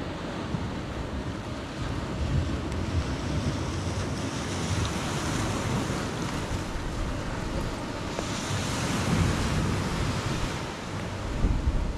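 Surf breaking and washing up the beach in a steady wash, with wind buffeting the microphone in low, uneven rumbles.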